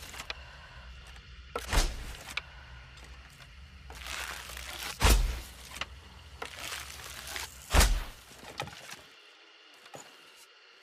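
Bow-and-arrow shots: three loud thuds about three seconds apart, over a low steady hum that stops about nine seconds in.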